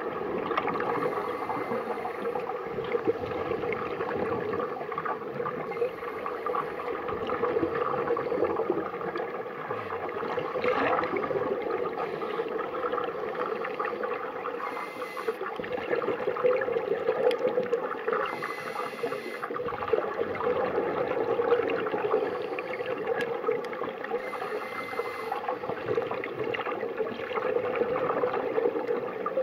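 Scuba divers breathing through regulators underwater: exhaled bubbles gurgling and bubbling in a steady muffled wash, with a short hiss every few seconds.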